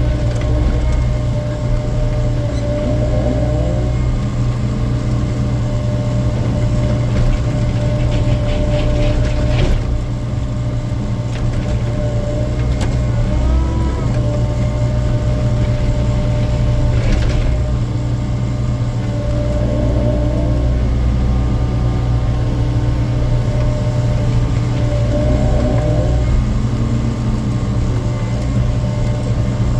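Hydraulic excavator working with its bucket to load concrete waste: a steady diesel engine hum with hydraulic whines that rise and fall as the boom and bucket move, and brief clatters about ten seconds in and again near seventeen seconds.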